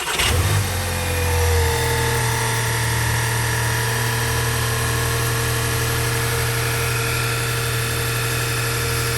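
VW Jetta 2.0 TSI EA888 turbocharged four-cylinder petrol engine catching at the end of cranking on its first start after reassembly. It flares briefly, then settles into a steady idle.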